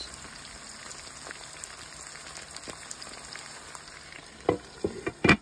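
Cubed hamburger patties and eggs frying in a pan: a steady sizzle with small crackles. Near the end a glass lid is set on the pan with a few sharp knocks and clinks, the last one the loudest.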